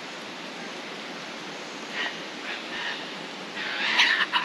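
Laughing kookaburra calling: a few short chuckles about two seconds in, then a louder chattering run near the end, over a steady background hiss.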